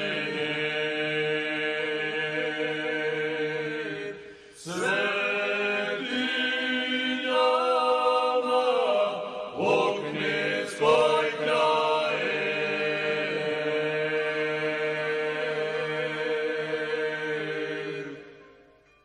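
Men's voices singing a slow, chant-like folk song with long held notes, a brief break about four seconds in, fading out at the end.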